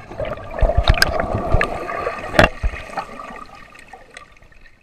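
Water gurgling and bubbling around a camera dipped underwater, muffled, with scattered low thumps and sharp clicks, one loud click about two and a half seconds in. The sound fades out near the end.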